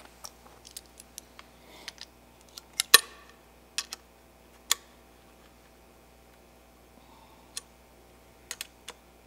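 Irregular sharp clicks and taps of small metal headset parts and tools being handled while a bike's fork and headset are put back together. The loudest is a single knock with a brief ring about three seconds in.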